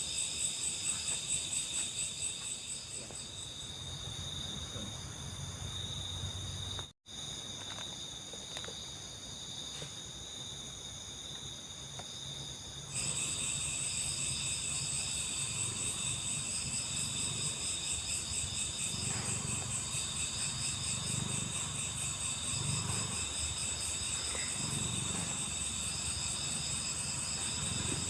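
Steady chorus of crickets and other insects: shrill, fast-pulsing trills at several pitches, with a faint low rumble underneath. It cuts out for an instant about seven seconds in, then comes back louder about thirteen seconds in.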